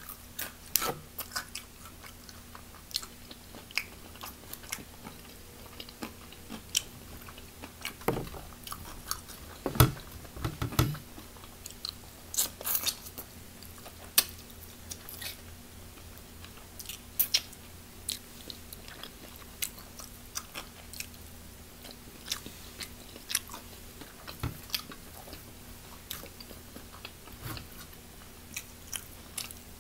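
Close-miked eating of crispy fried chicken wings: scattered crunchy bites, chewing and wet mouth clicks, loudest in a cluster of bites about ten to thirteen seconds in. A faint steady hum runs underneath.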